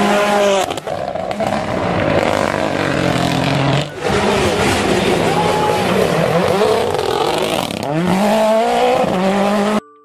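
Mini Cooper WRC rally cars' engines revving hard, pitch climbing and falling through gear changes, heard in short clips joined by abrupt cuts every few seconds.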